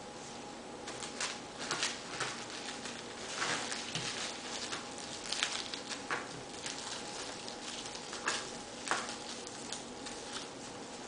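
Plastic cling wrap crinkling and crackling in short, irregular rustles as it is peeled off a cut melon half.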